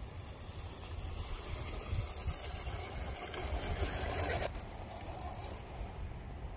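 A 1/10 scale RC crawler driving over dirt and rock, heard under a steady low wind rumble on the microphone. A rougher scrape builds and then cuts off abruptly about four and a half seconds in.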